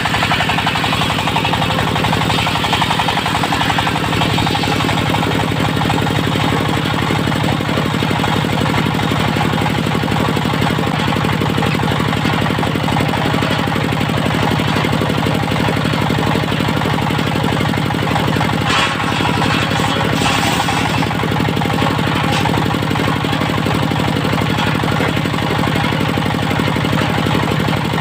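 Diesel engine of a portable circular sawmill running steadily at constant speed with a rapid, even beat, with a short burst of higher, hissing noise about two-thirds of the way through.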